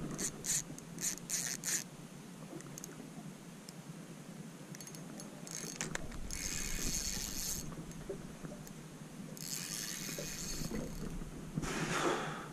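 A fishing reel working while a hooked mulloway is played. It gives a few sharp clicks in the first two seconds, then three spells of ratcheting reel noise, each about a second long.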